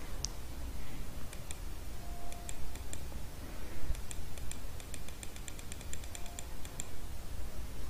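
Faint computer mouse clicks, a few scattered at first and then a quick run of several a second, over a low steady hum.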